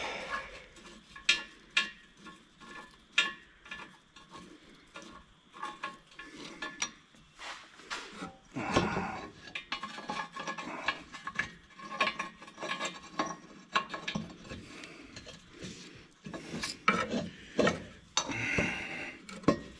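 Irregular metallic clinks, knocks and scraping as hands handle metal parts and tools around a Minneapolis Moline G900 tractor's exhaust manifold during refitting of the manifold gaskets, with a few louder knocks about 9 seconds in and near the end.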